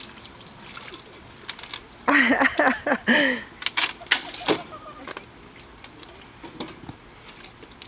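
Ice cubes from a just-emptied bucket of ice water clinking and clattering in scattered sharp clicks, busiest around four seconds in. A person's voice cries out briefly about two seconds in.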